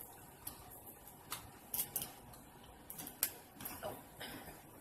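Scissors snipping through king crab leg shell: a handful of short, sharp clicks at irregular intervals.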